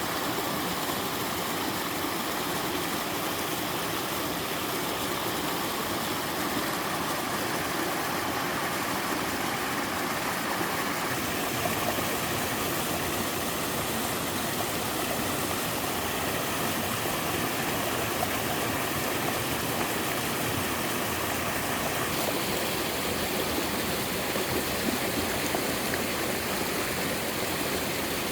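Waterfall pouring steadily into a mountain stream, a continuous rush of falling water. Its tone shifts slightly twice, about a third and two-thirds of the way through.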